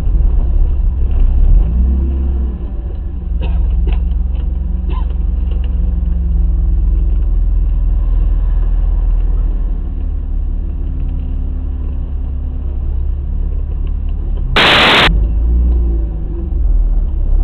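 BMW E30 with a 2.0-litre M50B20 straight-six driving, heard from inside the cabin: a steady low rumble of engine and road noise, with a few light clicks about four seconds in. Near the end a sudden loud burst of noise lasts about half a second.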